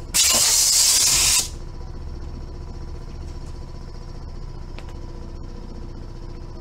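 A sudden, loud blast of compressed air from a tyre-shop bead-blaster ('shock') tank, hissing for just over a second and then cut off. The blast is used to seat the bead of a tubeless tyre that will not inflate normally. A low steady hum follows.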